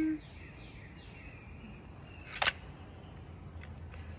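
A single sharp crack of a pellet rifle being fired about two and a half seconds in, with birds chirping in the background and a brief low tone at the very start.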